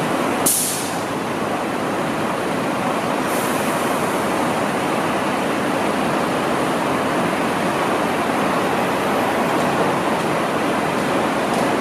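Scania fire truck's diesel engine running close by as it pulls slowly away, heard as a loud, steady, even noise. A short, sharp burst of air-brake hiss comes about half a second in, and a fainter hiss about three seconds in.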